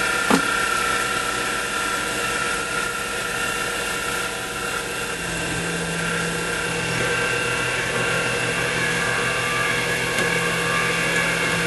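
X2 mini mill's spindle running a slightly dull drill bit with a steady whine. There is a sharp click about half a second in, and a lower hum joins about five seconds in.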